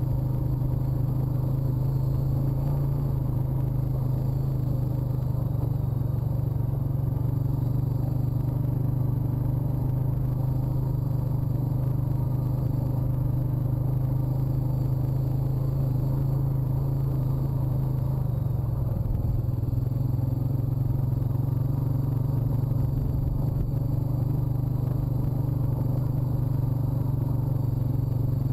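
Honda ATV's single-cylinder four-stroke engine running at a steady, moderate speed while the quad is ridden over rough grassland.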